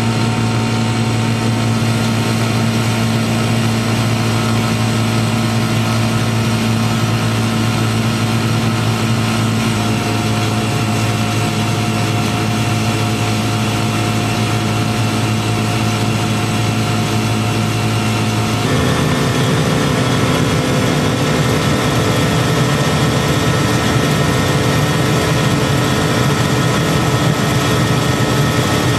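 Steady mechanical hum of a machine or engine running, holding several fixed tones; the tone shifts abruptly about ten seconds in and again about two-thirds of the way through.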